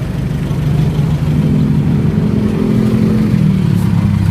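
Light pickup truck engine running close by, revving up about a second and a half in and easing back down near the end.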